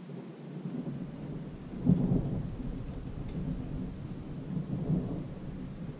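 Rolling thunder, a deep rumble that swells sharply about two seconds in and again near five seconds, over steady rain.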